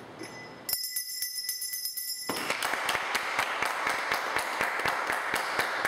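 A bell rings for about a second and a half, starting about a second in, then it cuts off and people break into applause, many hand claps together, for the rest of the time.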